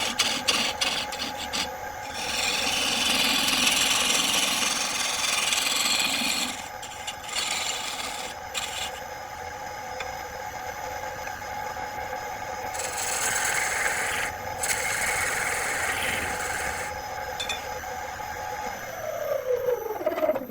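Wood lathe running with a steady motor hum while a turning tool scrapes and rubs against the spinning wood, louder in two spells. Near the end the motor is switched off and winds down, its pitch falling until it stops.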